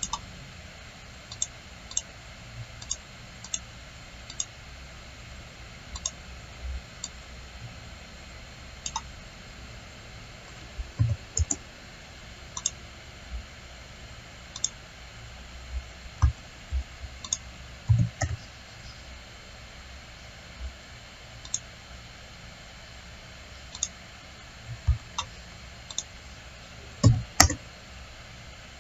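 Computer mouse clicking in scattered single clicks at irregular intervals, with a few duller knocks among them, over a steady faint hiss.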